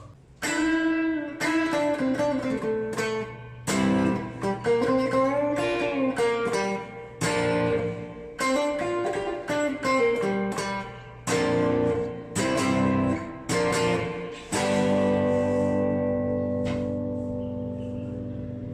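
Electric guitar played through a VOX VT40X modelling amp: picked phrases of chords and single notes with string bends sliding the pitch up and down, ending in a chord left to ring out and slowly fade. A steady low amp hum sits underneath.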